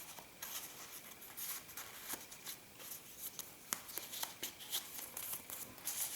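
Paper rustling with scattered light ticks as the paper pages, envelopes and cards of a handmade journal are handled and turned.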